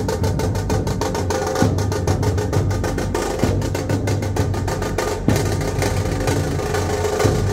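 Dhol drumming with a fast, steady beat of sharp, rapid strokes over deep drum hits.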